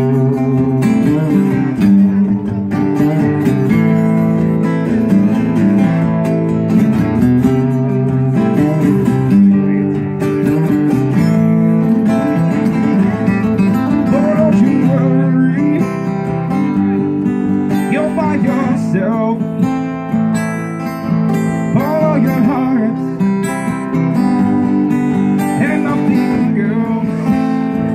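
Two acoustic guitars played live as an instrumental duo, steadily strummed chords without a break.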